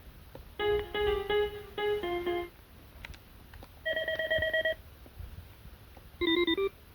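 Cisco SPA525G2 IP desk phone playing short ringtone snippets one after another. First comes a quick run of electronic notes, then a single warbling tone about four seconds in, then a short burst of tones near the end, with faint clicks between them.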